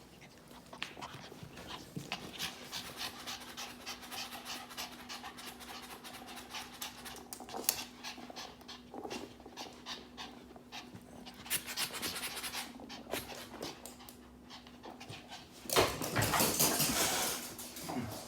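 A puppy panting fast and steadily. Near the end there is a louder noisy stretch of about two seconds.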